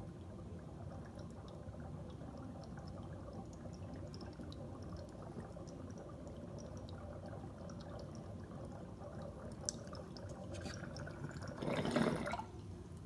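Water bubbling through a glass bubbler's percolator as vapor from a dry-herb vaporizer is drawn through it: a steady low gurgle with small pops. Near the end there is a brief, louder surge, then it stops suddenly.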